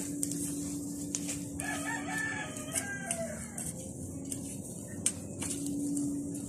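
A rooster crows once, about a second and a half in, the call lasting around two seconds. Under it come scattered sharp ticks and scrapes of a short-bladed hand tool chopping weeds out of the soil.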